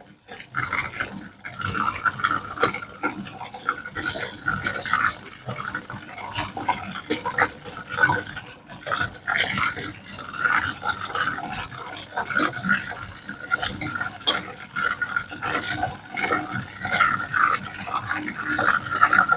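Chicken pieces deep-frying in a steel pot of hot oil, bubbling and crackling steadily during the first, lower-temperature fry of a double fry. Metal tongs knock against the pot now and then as pieces are lifted out.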